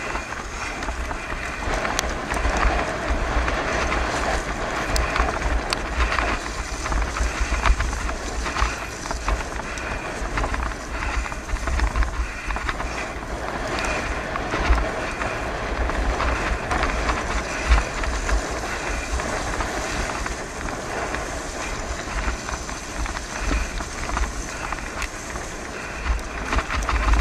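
Wind buffeting the microphone over the steady hiss and crunch of bicycle tyres rolling on a gravel and mud track, with scattered small clicks and rattles.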